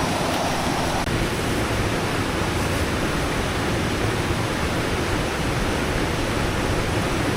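Steady rush of water from a river and waterfall, an even hiss without breaks.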